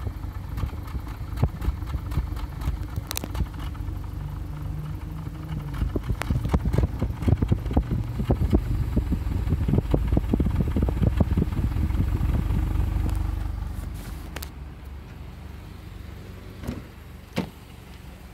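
2001 Honda Civic's four-cylinder engine idling, heard at the tailpipe: a low steady exhaust note with a rapid run of uneven puffs and pops through the middle, the exhaust sound the owner presents as a problem. It fades after about 13 seconds, and two short knocks follow near the end.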